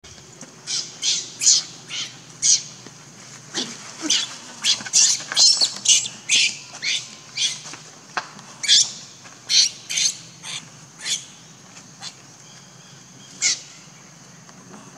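Baby macaque giving shrill distress squeals: short, high-pitched cries repeated about twice a second, which stop about a second and a half before the end.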